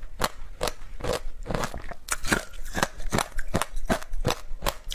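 Shaved ice coated in passion fruit pulp being chewed, a steady run of crisp crunches at about three a second.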